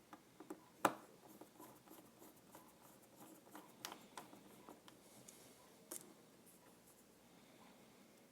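Faint, scattered clicks and taps of small smartphone parts being handled on a work surface, the sharpest click about a second in and a few more near the middle and toward the end.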